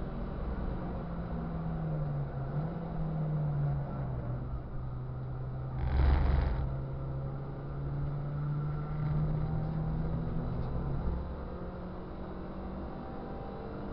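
Ford Fiesta Cup race car's engine, heard from on board, running under steady load through a corner. A short loud rumble about six seconds in comes from the car riding over the kerb, and the engine note drops away about eleven seconds in.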